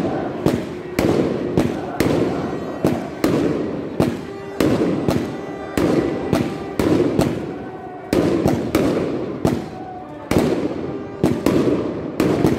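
Aerial fireworks bursting in rapid succession, about two bangs a second, each with a short crackling tail, over voices in the background.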